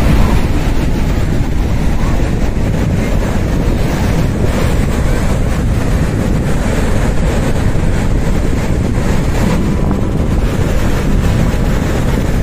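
Wind buffeting the microphone over steady ocean surf breaking on the beach, a constant loud rushing with heavy low rumble.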